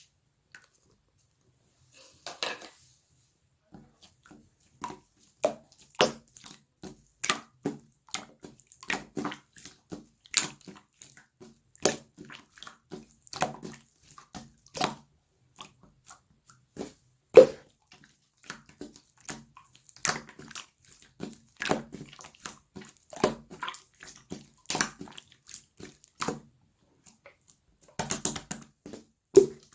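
Slime being squeezed and stretched by hand, making irregular wet pops and clicks, mostly one or two a second, starting about two seconds in.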